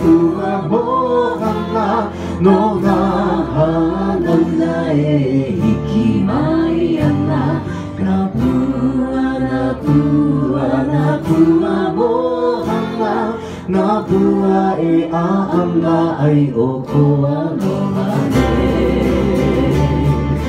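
Live Hawaiian band music: singing over strummed acoustic guitar and ukuleles. Near the end the singing stops and the strumming carries on.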